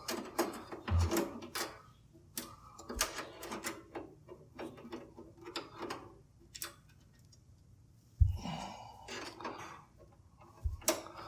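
Hands handling a graphics card and a PC case's metal expansion-slot area: a run of light clicks, taps and rattles, with three dull thumps, about a second in, around eight seconds in and near the end.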